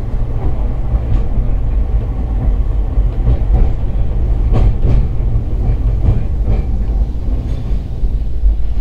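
Hakodate City Transportation Bureau 8000-series tram running, heard from inside the car: a loud, steady low rumble from the wheels and running gear, with scattered clicks and knocks as the wheels pass over rail joints.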